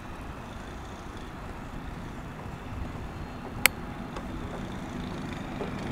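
Steady low rumble of outdoor street ambience with road traffic, broken by one sharp click about three and a half seconds in. A low hum starts to build near the end.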